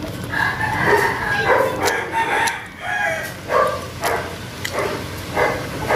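A rooster crowing, one long crow of about two seconds, followed by several shorter calls.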